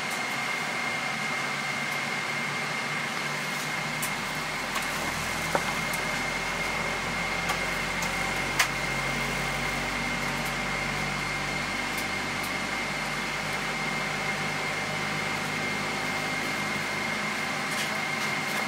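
Steady cabin noise of a Boeing 777-300ER before takeoff: air-conditioning hiss with a thin, high, steady whine, and a few light clicks, the sharpest about eight seconds in.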